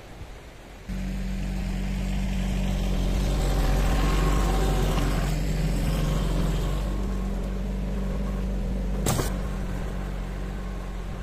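Yanmar compact tractor's diesel engine running steadily while it pulls a rotary tiller through the field. The sound starts abruptly about a second in, is loudest a few seconds later as the tractor passes close, then eases off a little as it moves away. A single sharp click comes near the end.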